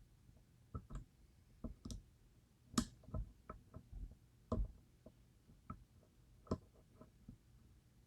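Faint, irregular small clicks and taps of lock picks and a tension tool working the pins inside a DOM IX Twinstar lock, the sharpest about three seconds in and again near four and a half seconds.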